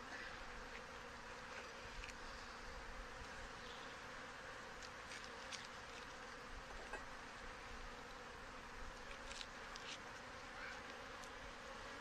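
Honey bees buzzing steadily over an open hive full of bees, with a few faint clicks scattered through.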